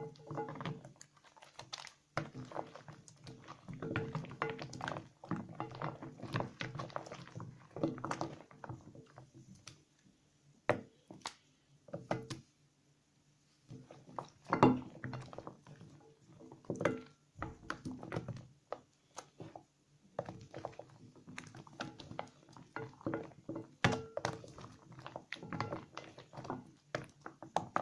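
Hands lathering small wet soap scraps: irregular wet squishing and crackling of lather, with clicks and occasional louder soft knocks.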